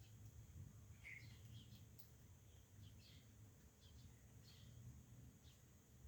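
Near silence: a faint low hum with scattered faint, short high chirps.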